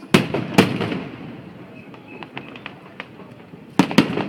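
Aerial firework shells bursting: two loud bangs about half a second apart, a fading rumble with scattered small crackles, then two more bangs in quick succession near the end.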